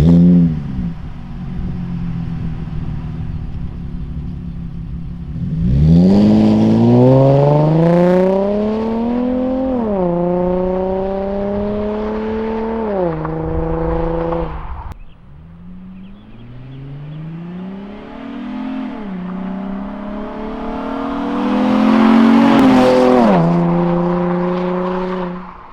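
2010 Chevrolet Camaro's 3.6-litre V6 exhaust note: a short rev settling to idle, then a hard acceleration, its pitch climbing and dropping back at each gear change. A second, lighter pull rises through the gears and levels off near the end.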